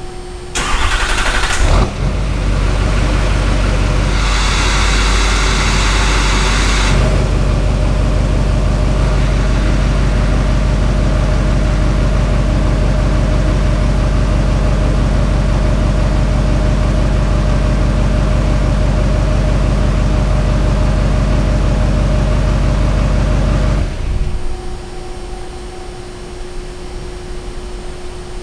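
LMM Duramax 6.6-litre V8 turbodiesel cranked by its starter and catching about two seconds in, then idling steadily. This is the first start after new glow plugs, a fuel filter change and an oil change. The engine is shut off about 24 seconds in.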